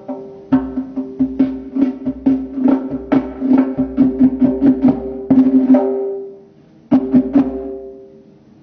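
Tombak (Persian goblet drum) played with the hands in a fast run of strokes: a ringing low bass tone under sharp, crisp higher strokes. It breaks off about six seconds in, then a last short burst of strokes rings out and fades away.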